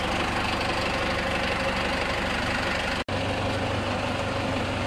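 Steady mechanical running noise like an idling engine, with faint steady tones. It drops out for an instant about three seconds in, then continues with a steady low hum.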